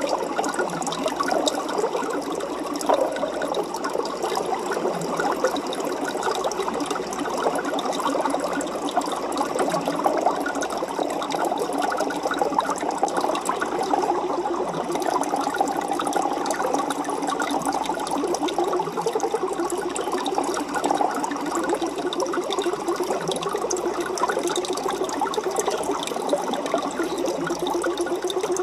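Aquarium water circulating with a steady, dense splashing and bubbling that stays even throughout.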